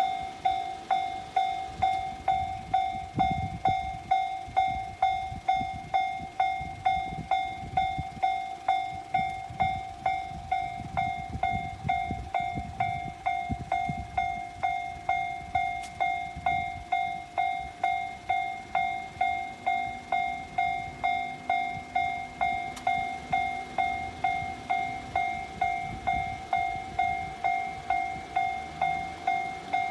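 Japanese railway level-crossing warning bell ringing, a clear repeating tone struck a little under twice a second without a break, with the rumble of a passing train underneath.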